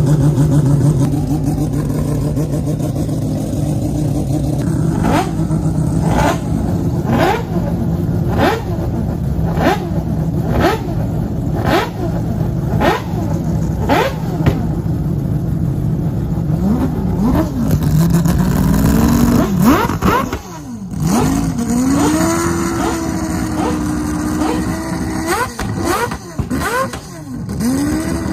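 Mazda four-rotor rotary racing engine running at a standstill: it idles, then is blipped over and over, about one sharp rev every second, and in the last part is revved harder and held at a raised idle between revs.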